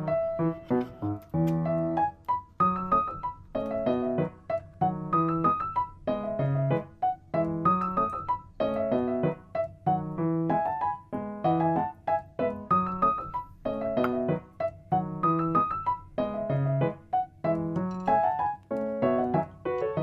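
Background piano music: a repeating melody over low bass notes.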